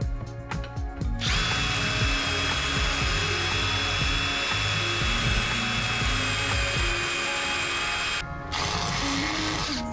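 Cordless drill motor running steadily for about seven seconds, stopping briefly, then running again for about a second and a half.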